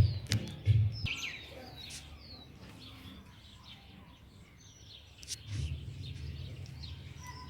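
A large flock of parrots calling, with many short overlapping chirps and squawks. A low rumble runs under the calls during the first second and comes back about five and a half seconds in.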